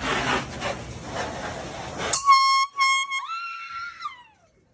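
A rough rustling noise for about two seconds that cuts off abruptly. Then a high-pitched air horn: two short blasts, then a longer one that bends up and slides down in pitch as it fades out.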